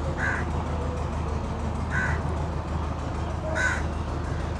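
A bird calling three times, short calls about a second and a half apart, over a steady low hum.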